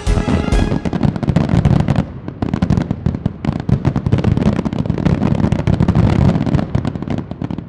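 Aerial fireworks bursting in a rapid, continuous barrage of bangs and crackle, with a short lull about two seconds in.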